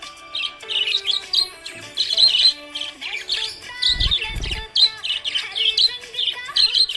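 Small pet parrots chirping and twittering in a rapid, continuous stream of short high calls, over background music with held notes. A low thump rumbles briefly about four seconds in.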